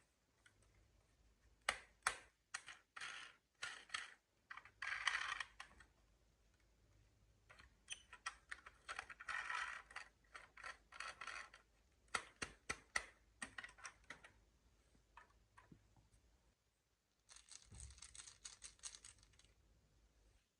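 Marbles rolling and clacking through a wooden marble run: runs of sharp clicks as they drop onto and knock against the wooden blocks, with longer rattling rolls about five seconds in, around ten seconds, and again near the end.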